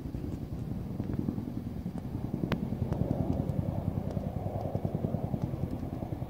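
Boeing CH-47 Chinook tandem-rotor helicopter flying overhead, loud, its rotors beating in a fast, steady chop that grows louder partway through.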